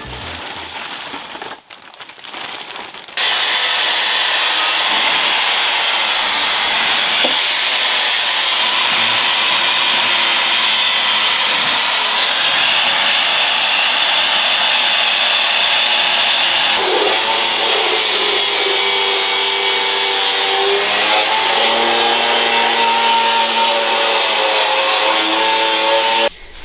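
High-speed grinder with a wire brush wheel running against sheet steel, stripping paint: a loud, steady scratching whir that starts about three seconds in. In the later part, the motor's pitch sags and recovers as the wheel is pressed into the metal.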